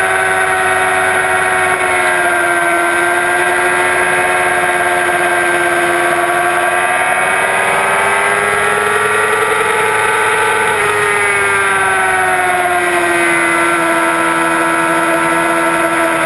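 2006 Yamaha R6's 600 cc inline-four sport bike engine running at high revs on track, heard over steady wind rush. The engine note climbs slowly through the middle, drops sharply about two-thirds of the way in, then sinks gradually.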